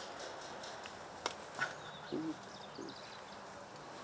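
Outdoor ambience in a pause of speech, with faint high bird chirps, two sharp clicks about a second and a half apart... actually about a third of a second apart, a little over a second in, and a short low murmur twice near the middle.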